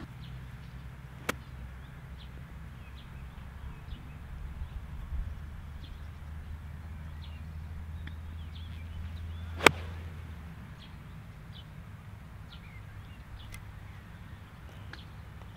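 One sharp crack of a golf iron striking the ball about ten seconds in, much louder than anything else, with a fainter click early on. A low steady hum runs underneath and stops just after the strike, and faint short bird chirps come and go.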